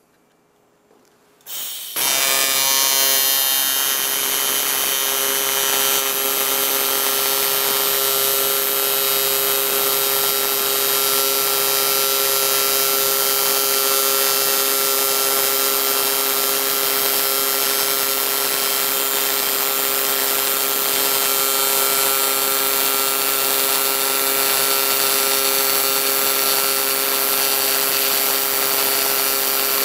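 AC TIG welding arc on 1/8-inch aluminum, fed by a Lincoln Invertec V205-T inverter welder. The arc strikes about two seconds in, then holds a loud, steady buzz with a hiss.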